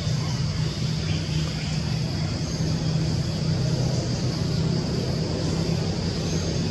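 A steady low engine drone with an even high hiss above it, unchanging throughout.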